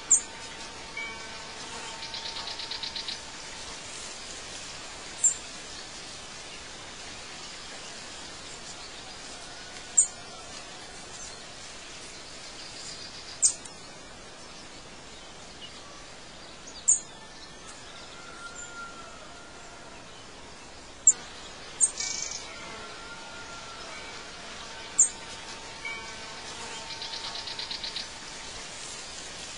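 Birdsong ambience: short, sharp high chirps every few seconds over a steady hiss, with a pulsed buzzing trill about two seconds in and again near the end.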